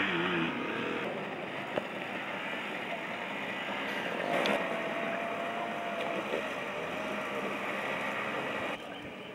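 Small moped engines running on a muddy offroad track, one bike struggling through a deep puddle, the engine note wavering in pitch around the middle.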